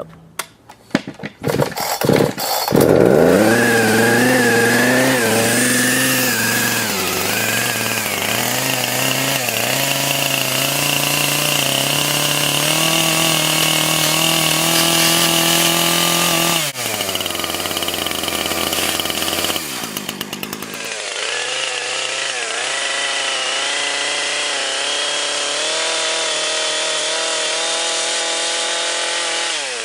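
Gasoline chainsaw pull-started with a few quick tugs, catching about two and a half seconds in, then running loud with its engine pitch rising and falling as it is revved. About two-thirds through the engine note drops sharply, then climbs back and holds steady.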